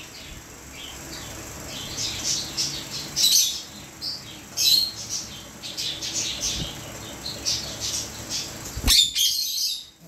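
Pet parrots chirping, an Indian ringneck parakeet and a cockatiel, in short high chirps that come in quick runs. A sharp knock about nine seconds in, followed by a brief flurry.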